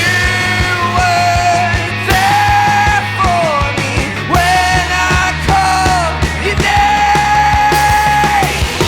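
Rock band playing a loud full-band passage: drums hitting steadily under guitars, with a melody of held and bending notes, the longest one held near the end.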